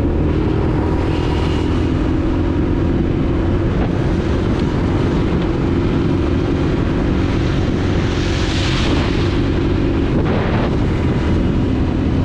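Honda TRX90 quad's small single-cylinder four-stroke engine running at a steady speed, with wind rumbling on the microphone. A hiss swells briefly about eight seconds in.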